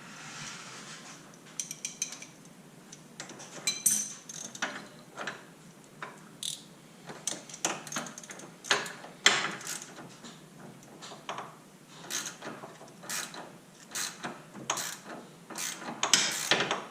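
Hand ratchet wrench loosening the nut on a sway bar end link, in a long series of short ratchet strokes, about one or two a second, with the odd clink of metal tools.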